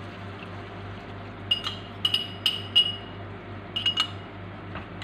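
A small drinking glass clinking against a metal spoon, about eight short ringing clinks in two bunches, as a cornstarch-and-water slurry is emptied from the glass into a pan of sauce.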